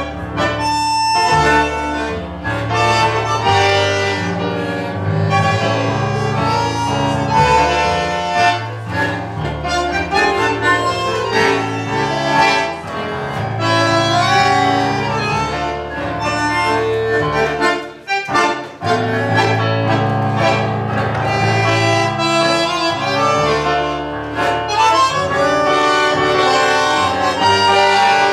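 Bandoneón playing a melody with electric keyboard accompaniment, an instrumental duet; the music breaks off briefly about two-thirds of the way through, then resumes.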